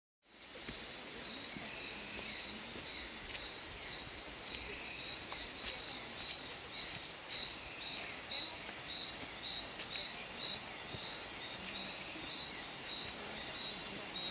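Night forest insects: a steady high buzzing chorus with a short chirp repeating about twice a second, and faint scattered clicks.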